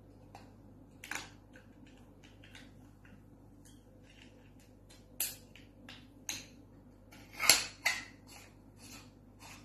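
Handling noises from a white handheld microphone being picked over and turned in the hands: irregular small clicks, taps and rustles, the loudest pair about seven and a half seconds in, over a faint steady hum.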